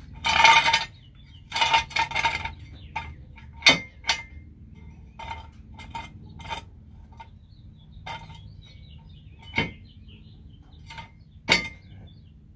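Metal clinking and scraping from tools and jack gear being handled under a car. It starts with a few short scraping noises, then comes a string of separate sharp clinks; the loudest fall about four seconds in, just before ten seconds and near the end.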